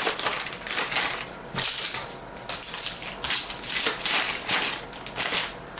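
Plastic candy bag and the wrappers of individually wrapped milk candies crinkling as a hand rummages through them, in irregular rustles.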